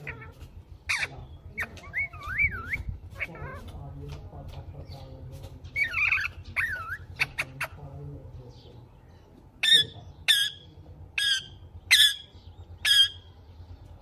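Indian ringneck parakeets calling: wavering chirps and whistles first, then from about ten seconds in a run of six loud, harsh squawks less than a second apart.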